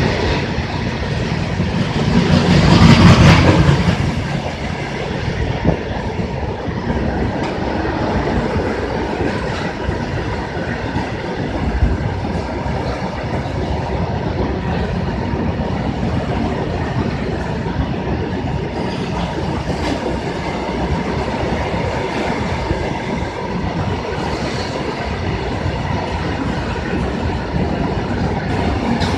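Loaded open freight wagons rolling past at speed: a steady rumble of wheels on rail with faint clacks at the rail joints, briefly louder about three seconds in.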